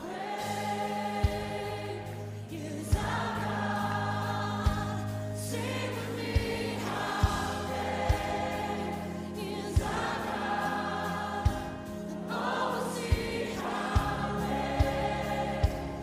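Background music: a choir singing in long held phrases over a low, steady bass, with a soft drum hit every second or two.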